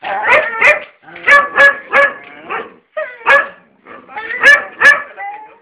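A dog barking at its own reflection in a mirror: about a dozen sharp barks in quick runs of two or three.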